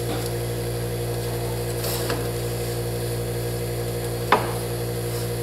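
A steady low hum made of several held pitches, from a running machine in the room. About four seconds in there is one sharp click, from hands handling the soldering iron's plastic housing and its wires.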